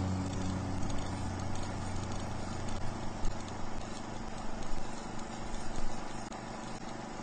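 The last chord of the song dies away under a steady hiss, with irregular soft knocks and clatters over it.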